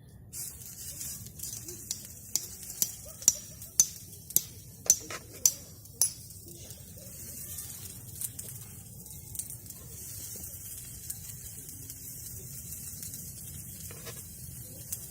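Food sizzling in a pan, a steady high hiss, with a run of about ten sharp clicks, roughly two a second, in the first half.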